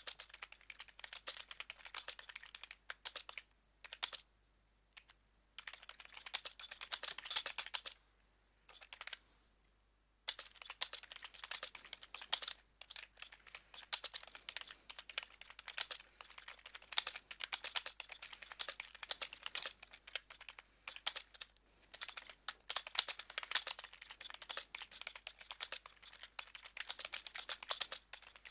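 Typing on a computer keyboard: rapid runs of key clicks broken by a couple of short pauses.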